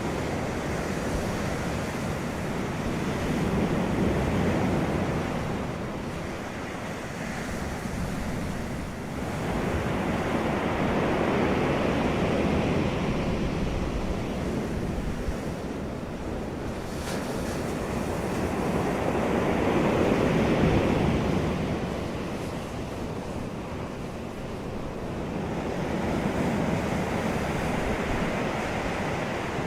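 Ocean waves breaking and washing up on the shore, the surf swelling and falling back about every seven to eight seconds.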